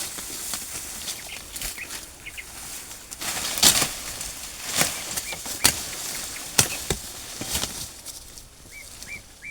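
Cassava being dug out of the ground: a run of sharp knocks or strikes, roughly one a second, with a few faint bird chirps.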